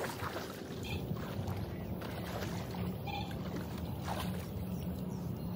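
Shallow pond water splashing and sloshing as people wade through it, dragging a mosquito net to catch fish.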